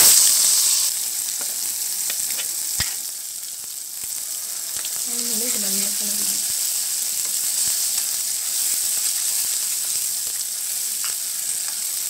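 Ground coriander chutney paste going into hot oil in a steel kadai: a sudden loud sizzle that settles after about a second into steady frying, with a spoon stirring and clicking against the pan.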